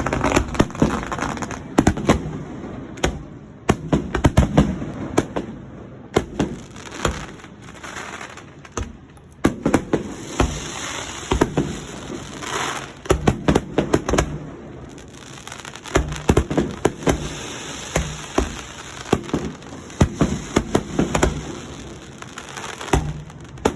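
Aerial fireworks going off: repeated booms coming in quick clusters, with a stretch of dense crackling around the middle.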